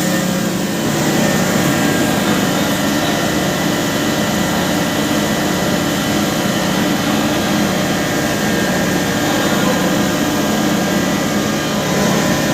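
Impact pulverizer (hammer mill) grinding machine running steadily: a loud constant hum with several fixed tones over a dense rushing noise.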